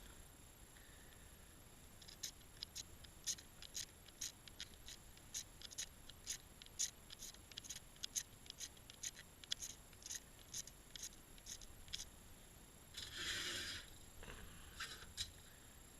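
A SOL MagStriker magnesium fire starter being scraped with its striker: a run of short, quick scraping strokes, about three or four a second, then one longer scrape and a couple more near the end.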